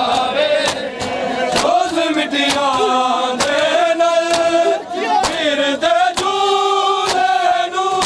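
Male voices chanting a mourning noha, with a group's open-hand chest-beating (matam) striking in time about once a second as sharp slaps over the held, sliding notes of the chant.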